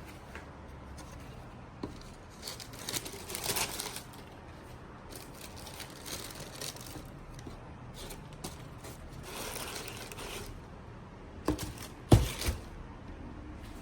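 Cardboard shoebox and paper packing being handled: bursts of rustling, crinkling and scraping, then a couple of sharp knocks near the end, the second the loudest.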